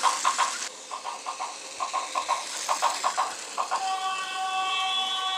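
Plarail Tokai 313 series toy train running, its built-in sound unit playing a rhythmic clickety-clack of rail joints. Near the end a steady electronic horn-like tone sounds, held for about a second and a half.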